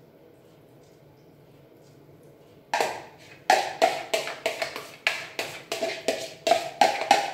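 Faint room tone, then about three seconds in, a run of sharp taps on a red plastic mixing bowl, about three a second, each with a short ringing note, as the last of the egg-and-yogurt batter is knocked out of the bowl onto the quiche.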